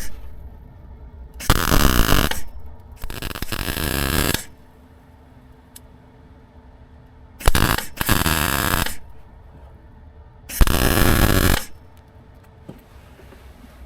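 Electric welding arc crackling in four short bursts of about a second each, with pauses between them, as a steel outrigger panel is welded into a car's front end.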